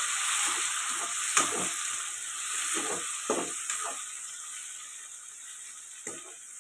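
Sliced onions and curry leaves sizzling in hot oil in a non-stick frying pan, the sizzle slowly dying down. A metal perforated ladle scrapes and knocks against the pan a few times as the onions are stirred.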